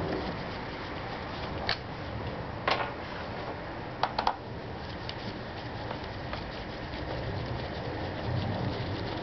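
Small clicks and taps of screws and plastic being handled at a scooter's body panel by gloved hands, over a steady low background noise. A few sharp clicks stand out: one near two seconds in, one near three, and a quick group of three around four seconds in.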